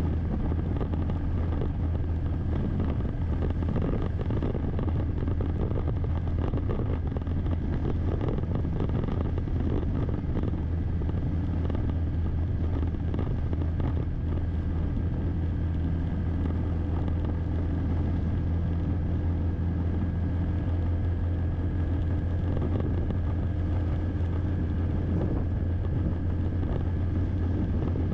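A vehicle cruising at a steady speed: an even, unbroken drone of engine and road noise.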